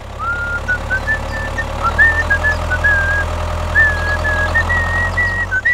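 A tractor engine running steadily at a low idle-like chug as a mini toy tractor pulls its loaded trailer. A thin whine over it steps up and down in pitch.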